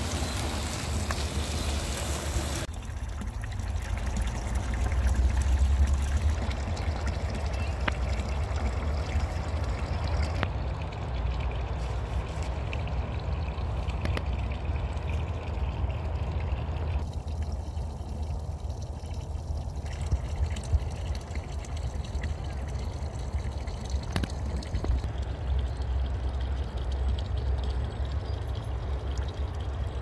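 Wind buffeting the microphone: a steady low rumble that swells in gusts, strongest about five seconds in.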